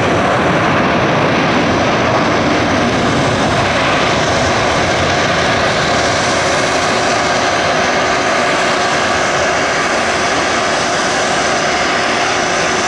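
Loud, steady jet airliner noise from Frontier Airbus A320-family aircraft: a continuous rush with a faint steady whine over it.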